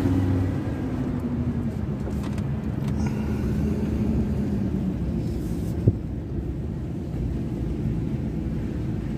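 Engine and road rumble of a vehicle driving slowly, heard from inside its cabin, with faint engine tones over a steady low rumble. A single sharp click about six seconds in.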